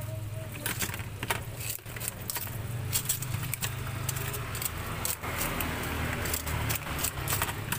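Metal tongs and scissors clicking and clinking, many sharp clicks, as crisp fried batagor is snipped and handled in a bowl, over a steady low rumble.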